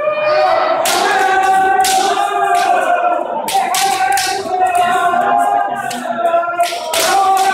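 Several kendoka shouting long kiai together, with sharp cracks of bamboo shinai strikes cutting through the shouts again and again.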